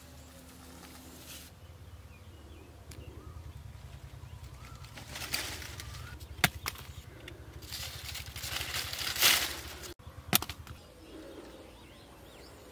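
Leaves and vines rustling as ridge gourds are picked by hand, in bursts, with a couple of sharp snaps. A low steady rumble and doves cooing are in the background.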